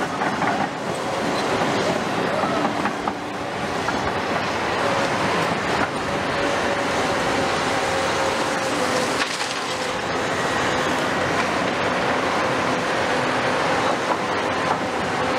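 Caterpillar tracked excavators working rubble: diesel engines and hydraulics running steadily under load with a held whine, along with the knocks and clatter of broken concrete in and off the bucket.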